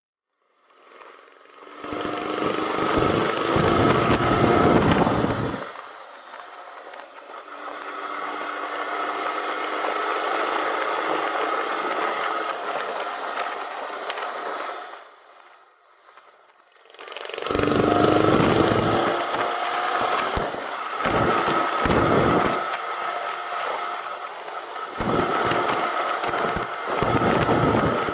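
Motorcycle engine pulling hard, its pitch climbing steadily through long accelerations, mixed with heavy wind buffeting on the bike-mounted microphone. The sound drops away briefly about halfway before picking up again.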